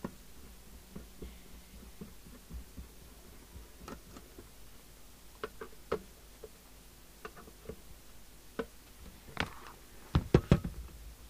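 Light clicks and scrapes of a hand screwdriver driving screws into the metal case of a CB radio, with a quick run of louder knocks near the end as the radio is picked up and turned over.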